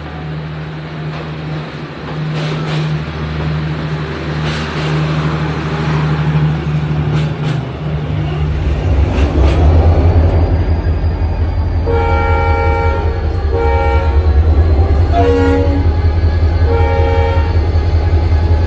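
A model train rolls along the track with light clicks. Then a deep diesel-locomotive engine drone sets in, and a multi-tone locomotive horn sounds in several blasts of about a second each.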